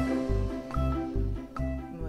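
Instrumental background music with held notes over a pulsing bass.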